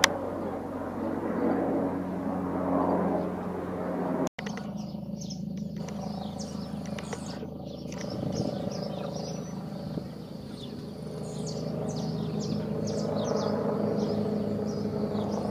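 Airbus H225M Super Cougar twin-turbine helicopter flying overhead at a distance, a steady low drone of rotor and turbines. The sound cuts out for an instant about four seconds in, and birds chirp over the drone from about five seconds in.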